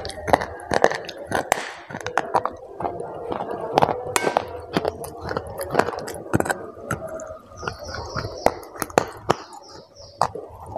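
Pieces of chocolate bar being bitten and chewed close to the microphone: a string of sharp snaps and crunches with wet mouth sounds in between.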